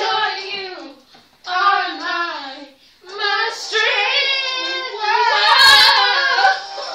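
Girls singing a song in short phrases, with brief breaks about a second and about three seconds in. A brief knock sounds near the end.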